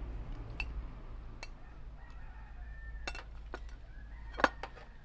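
Several sharp clicks and knocks of a utensil against a cooking pot as ingredients go in, the loudest about four and a half seconds in. A chicken calls faintly in the background.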